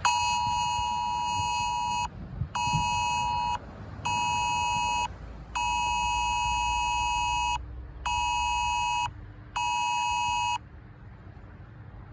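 iPhone 12 sounding the UK Emergency Alert tone for a Severe-channel cell broadcast alert, at full volume despite any silent setting: two tones close together near 1 kHz sounding at once, in six loud blasts, long-short-short, long-short-short, then it stops.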